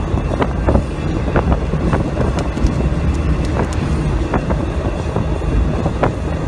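Jeep Willys driving along a paved road: a steady low rumble of engine and tyres, with scattered clicks and rattles throughout.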